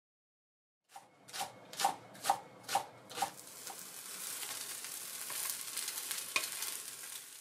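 A metal turner scraping and working under a green-onion and egg pancake in a nonstick frying pan: about six strokes, roughly two a second, starting about a second in. Then the pancake sizzles steadily in the hot oil, with one sharp tap near the end.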